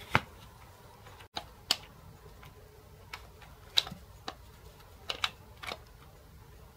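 Faint, irregular sharp clicks, about nine over several seconds, the strongest just after the start: a USB wall charger's plastic plug being pushed into and pulled out of a power-strip socket.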